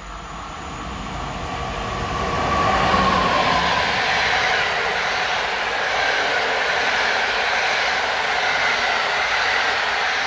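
PKP Intercity passenger train hauled by an electric locomotive passing through at speed. Wheel and rail noise builds as it approaches and is loudest about three seconds in, with a falling whine as the locomotive goes by, followed by the steady rush of the carriages rolling past.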